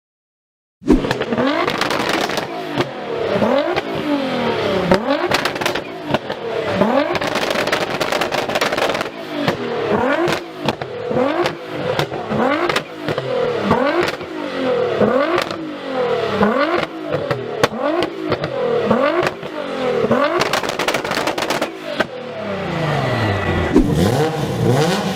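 Engine with a loud performance exhaust revved up and down over and over, about one rev every second or two, with crackles between revs. Near the end it climbs in one longer rising rev.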